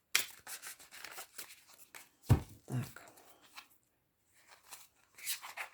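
Tarot cards being shuffled and handled: a quick run of papery flicks and rustles in the first two seconds, then a few scattered clicks and a short rustle near the end.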